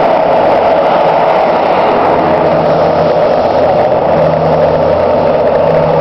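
Fire truck engine running steadily.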